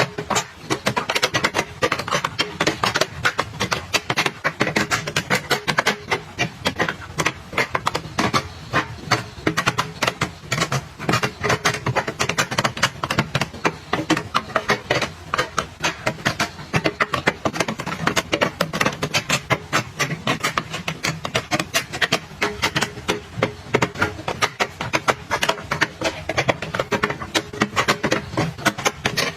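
Dense, rapid clicking and tapping of small items being handled and set down one after another, as in organizing and restocking.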